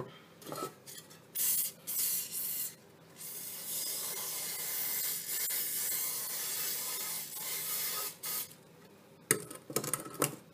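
Aerosol cooking spray hissing into a metal springform cake pan to grease it: a few short spurts, then one long spray of about five seconds. A few light knocks follow near the end.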